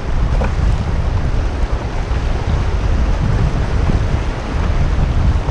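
Wind buffeting the microphone, a heavy low rumble, over the steady rush of fast, riffled river water around a canoe.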